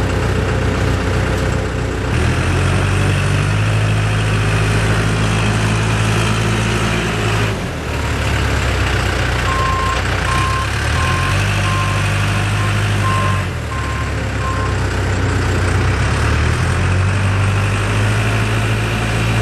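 Case 580M Series 2 backhoe loader's diesel engine running under load, its speed stepping up and down several times as the machine works. In the middle, the backup alarm beeps about eight times while the machine reverses.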